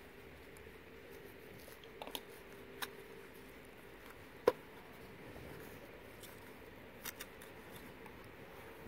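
Garden trowel working potting soil in a plastic planter: quiet, with a few sharp clicks and taps, the loudest about halfway through.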